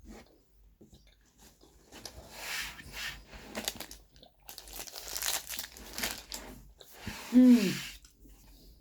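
Crunching and chewing of a dark-chocolate praline snack, with crinkling of its wrapper, in two rough stretches. Near the end comes a short hummed vocal sound that rises and falls in pitch.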